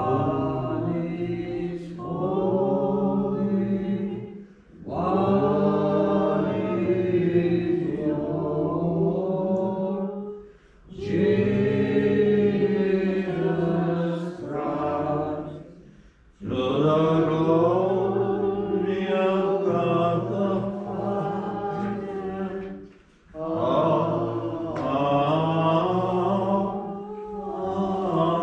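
A choir singing Byzantine-rite liturgical chant in five long, sustained phrases with short breaks between them.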